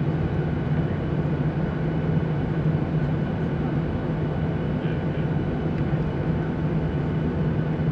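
Steady jet airliner engine noise heard inside the passenger cabin while the plane taxis, an even drone with a low hum.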